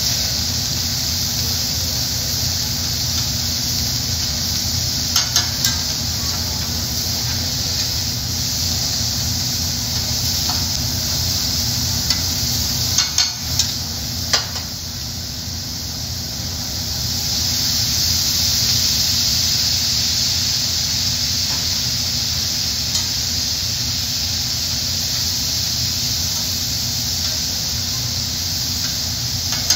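Vegetables, steak, shrimp and salmon sizzling steadily on a hot hibachi griddle. Sharp clicks of metal spatulas on the steel plate come about five seconds in and again in a cluster near the middle.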